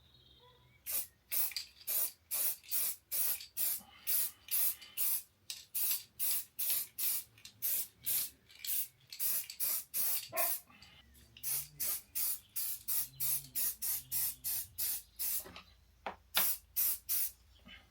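Aerosol spray-paint can spraying in short, rapid hissing bursts, about two a second, with a brief pause near the end.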